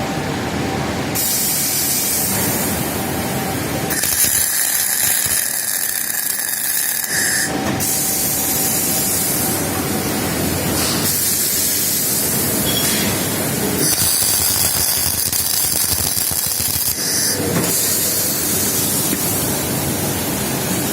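Welding arc hissing and crackling from an automated two-station welding machine laying programmed beads. It runs in stretches of about three seconds that stop and restart several times, over a steady machine hum.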